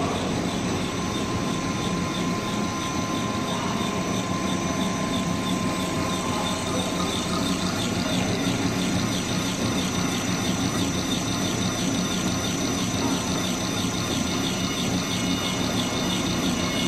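Snack extruder running steadily, its electric motor and drive giving a constant hum with a high thin whine and a fast, even ticking.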